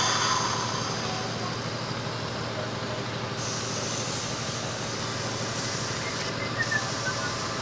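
Steady background hiss with a low hum underneath and no distinct event.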